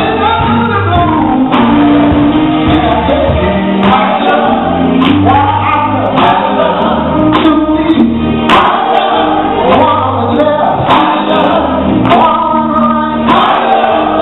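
Live gospel music: a man singing into a microphone over electric guitar, bass guitar and a drum kit, with held sung notes and steady drum hits throughout.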